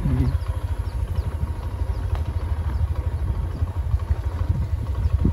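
Small motorcycle engine running as it rides, a low fluttering rumble with wind buffeting the microphone.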